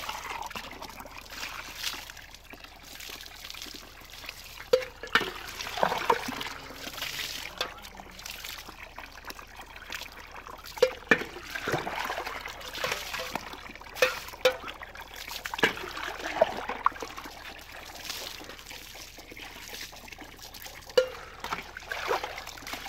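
Soapy water scooped from a bucket with a steel mug and poured over a bicycle, trickling and splashing onto the concrete, with several short sharp knocks along the way.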